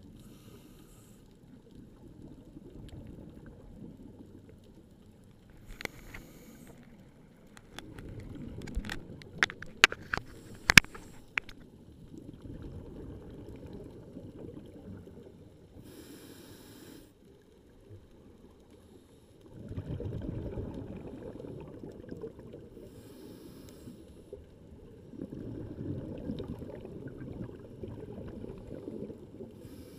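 A scuba diver's regulator breathing underwater: exhaled bubbles burst out about every six or seven seconds over a low rush of current flowing past the camera. A cluster of sharp clicks comes about nine to eleven seconds in.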